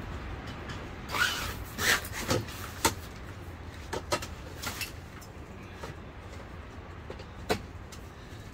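Handling noises from tent gear being threaded and fitted: scraping and rustling with a few short knocks, bunched between about one and three seconds in, then scattered, over a steady low rumble.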